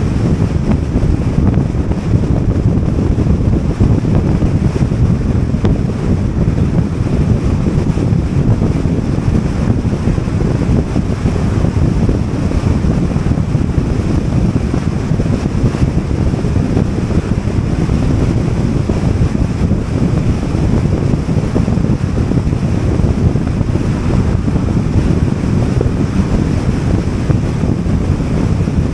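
Steady wind and road rumble from a car driving at highway speed, a constant low rush with no changes.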